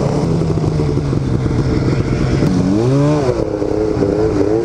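Snowmobile engine running under way, steady, with a quick rev that rises and falls back about three seconds in.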